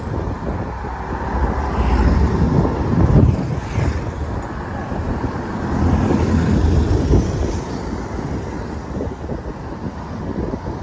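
Riding a motorcycle through traffic: wind rumbling unevenly on the microphone over engine and road noise from passing vehicles.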